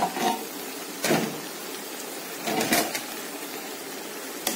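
Metal lid being lifted off a pan of curry that has been steaming on dum: a few knocks and clinks of metal on metal, about a second in and again near three seconds, over a steady hiss.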